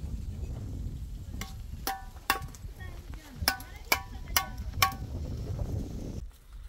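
A run of about seven sharp metallic clinks, each ringing briefly, over a low rumble of wind on the microphone that stops near the end.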